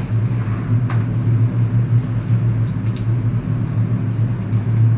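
A steady low droning hum, like a running motor, with a couple of faint clicks about a second in and about three seconds in.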